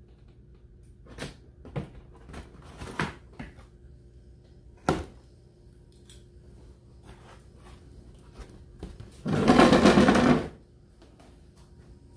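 Cardboard retail box being handled: a few light knocks and rustles, then a loud scraping, rasping noise lasting about a second, about nine seconds in, as the box is turned and its glued end flap is pulled open.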